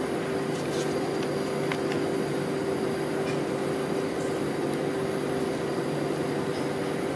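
Steady electric hum of a rolled ice cream machine's refrigerated cold plate running, with a few faint light clicks of metal tongs against the steel plate.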